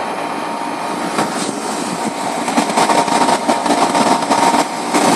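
Air-conditioning condensing unit running steadily: the compressor and condenser fan make a dense whirring noise with a faint steady hum. The unit is running with its liquid-line filter drier clogged.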